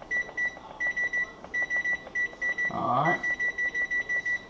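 Electric range's control panel beeping with each key press as the oven timer is set: short, high beeps in quick runs of about three or four a second. A brief voice sound comes about three seconds in.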